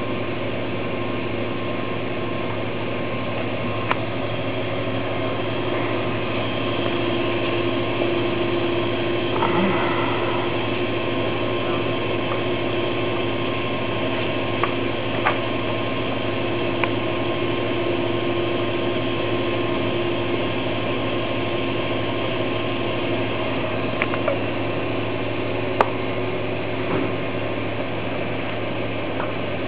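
AIT 6572 oil-heated drum heat transfer press running, its drum and feed belt turning with a steady mechanical hum. A few sharp clicks occur here and there.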